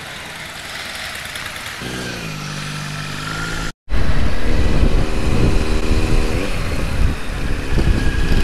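Kawasaki Z900 inline-four motorcycle engine running, its pitch falling and then holding. After a sudden cut it is heard riding at speed under loud wind rush on the helmet-mounted microphone, the engine note steady and then dropping as the rider eases off.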